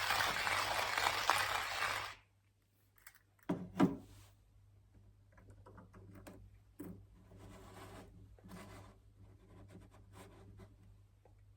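Dense scratchy rustling that cuts off abruptly about two seconds in, followed by two sharp clicks and then faint, scattered handling knocks and rubs.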